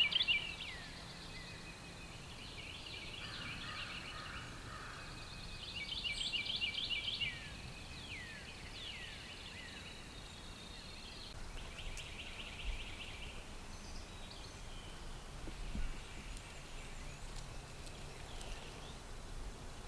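Wild birds calling in woodland: several fast trills of quickly repeated high notes, a few short falling whistles, and quieter calls in between.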